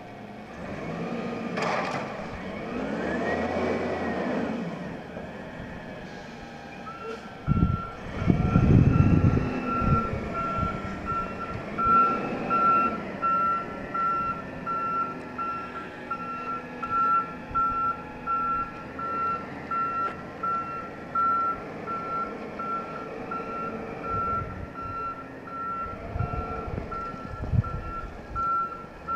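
Peterbilt 320 front-loader garbage truck's diesel engine revving up and down as it manoeuvres, with a loud low rumble about eight seconds in. From about seven seconds in, its backup alarm beeps steadily about once a second.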